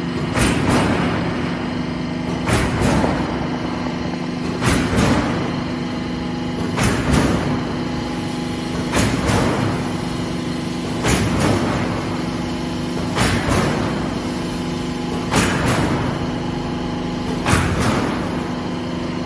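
Silo corrugated sheet roll forming machine running: a steady motor hum, with a short, loud surge of noise repeating about every two seconds as the machine cycles.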